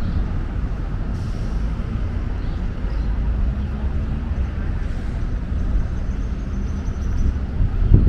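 City street traffic: a steady low engine rumble of motor vehicles.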